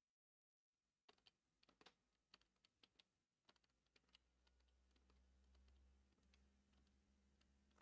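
Near silence: a few faint scattered clicks, then a faint low hum from about halfway in.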